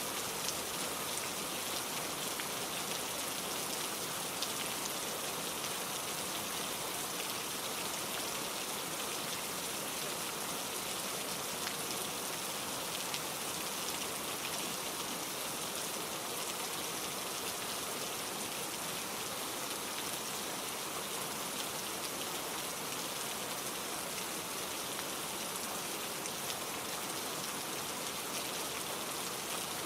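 Steady, even rainfall with a dense patter of fine drops; no thunder in this stretch.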